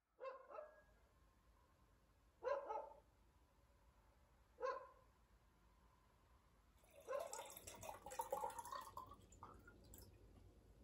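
A dog barks a few times, spaced out over the first five seconds. Then water is poured from an earthenware jar into a glass, a splashing trickle with a faintly rising pitch for about two seconds.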